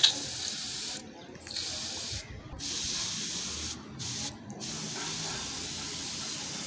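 Homemade pressure sprayer, a plastic soda bottle pumped up through a tyre valve, hissing as it sprays from its nozzle: long spells of spraying broken by four short pauses.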